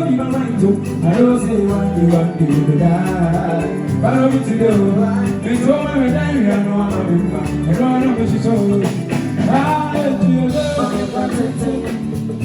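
Live band playing a song during a sound check, a wandering melody line over steady bass.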